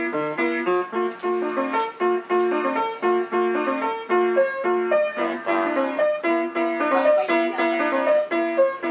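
Music: a piano tune played in short, quickly changing notes and chords.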